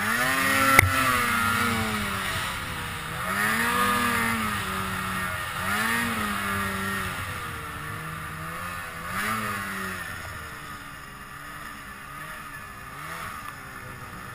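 Polaris snowmobile engine revving up and down under throttle in deep powder. Each blip is a rising then falling whine, coming about every two to three seconds, with a sharp knock about a second in. For the last few seconds the revs settle lower and quieter.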